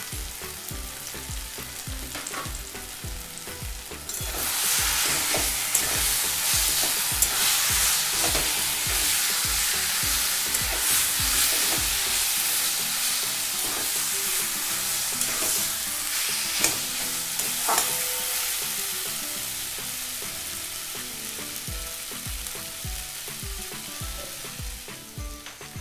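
Taro leaves frying in mustard oil in a metal kadai, sizzling steadily while being stirred, with occasional clicks and scrapes of the utensil against the pan. The sizzle grows louder about four seconds in and slowly eases toward the end.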